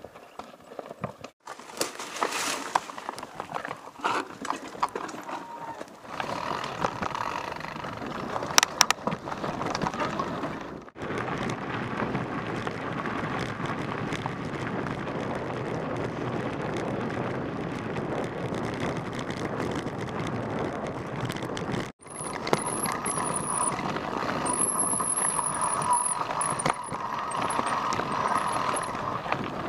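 Mountain bikes riding over a rocky trail: tyres crunching on stones and gravel, with the rattles and knocks of the bikes. The sound breaks off abruptly a few times where clips change. A thin, wavering high whine is heard for a few seconds near the end.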